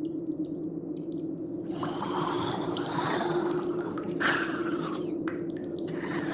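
Water dripping over a steady low hum; a noisy wash swells in about two seconds in.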